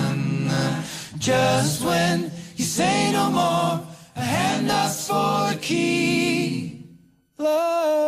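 Male voices singing a cappella in close harmony. A held chord gives way to several sung phrases with vibrato, then a brief pause about seven seconds in before a new chord begins.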